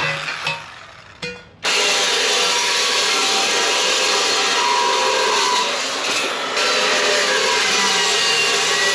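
Power saw cutting through steel pipe, a steady harsh grinding noise that starts about a second and a half in and dips briefly about six seconds in.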